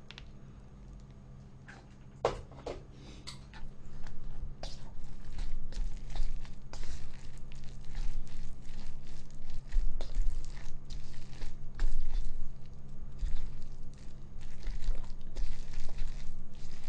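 Wooden chopsticks stirring instant jjajang noodles in thick black-bean sauce inside a paper cup: wet squishing and scraping against the cup wall. One sharp click comes about two seconds in, and steady irregular stirring runs from about four seconds in.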